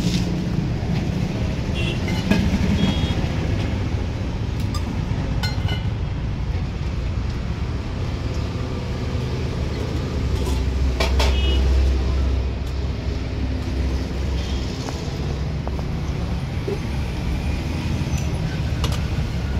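Road traffic going past, with a heavy vehicle loudest about ten to twelve seconds in. Now and then a short clink from the steel serving pots and ladle.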